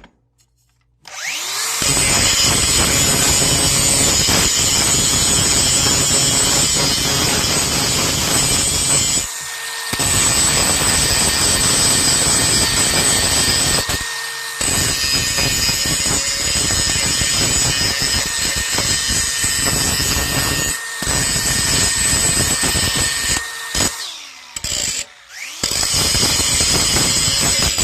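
A power grinder grinding down a broken weld on a steel mower-deck bracket to prepare it for re-welding: long loud passes with a high whine, stopping briefly several times.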